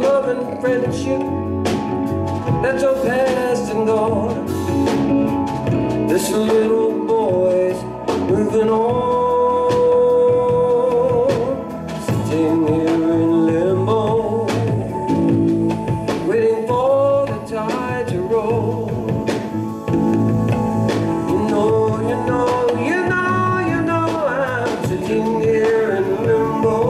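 Live band playing a slow song on keyboards, bass and drums, with a gliding, wavering lead melody line on top.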